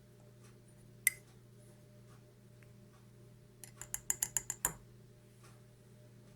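Small sharp clicks: one about a second in, then a quick run of about nine close together near the middle, ending in a soft thump, over a steady low hum.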